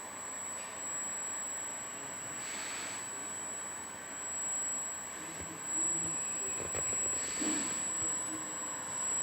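Yaskawa SGMGH-05DCA61 AC servo motor running on a test stand. It makes a steady high-pitched whine over a hiss, with a few soft swells of noise coming and going.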